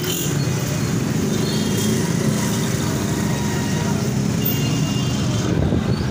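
Busy street traffic: motorcycle and auto-rickshaw engines running in a steady din, with people's voices in the background.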